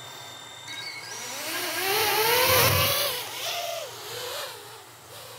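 FPV quadcopter's brushless motors and propellers being throttled up for a hand launch: a steady high whine at idle after arming, then a rising whine as the throttle is slowly raised, loudest two to three seconds in. The whine then drops and wavers more faintly as the quad flies off.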